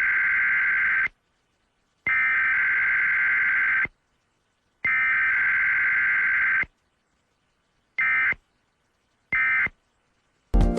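Emergency Alert System SAME data bursts: the harsh two-tone digital screech sent three times in long bursts about a second apart, then in two short bursts near the end.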